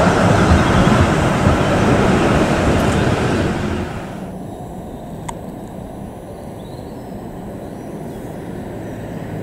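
Historic tram running close by, a loud rumble of wheels on the rails. About four seconds in the sound cuts sharply to a quieter, steady hum of distant road traffic, with a tram far off on its track.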